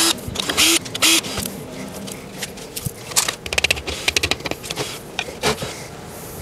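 A cordless drill-driver spinning in a few short pulses to back out screws, followed by a quick run of clicks and rattling as metal and plastic parts are handled, with a louder knock about five and a half seconds in.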